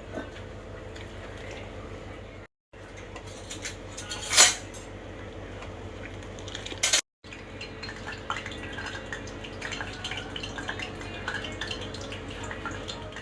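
Metal kitchen utensils clinking and scraping against pots and dishes, with one louder clatter about four seconds in and a run of small clinks in the second half.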